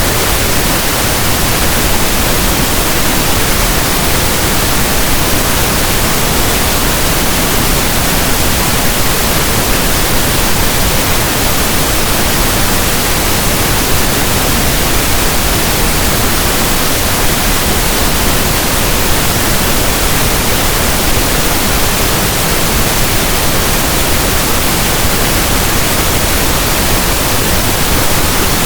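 Steady pink noise: a constant, even static hiss like a radio not tuned to a station, unchanging throughout.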